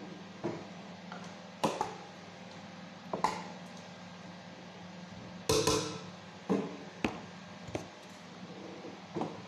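A spoon knocking and scraping against a metal stockpot as food is dished out: sharp clanks every second or so, the loudest a little past halfway. A steady low hum runs underneath.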